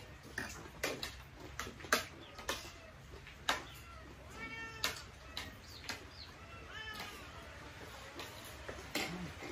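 A house cat meowing, two short calls about midway, amid sharp clinks of spoons on plates from people eating.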